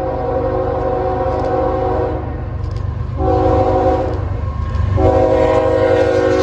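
Locomotive air horn sounding a chord of several notes: a long blast that stops about two seconds in, a short blast about three seconds in, and another long blast starting near the end, over the steady low rumble of the train.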